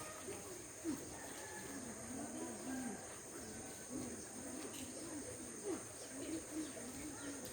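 Birds calling with a string of low, repeated cooing calls, over a steady high hiss.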